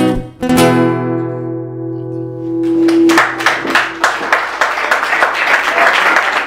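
Acoustic guitar strums a last chord that rings out and fades, closing a song. About three seconds in, a live audience breaks into applause that continues.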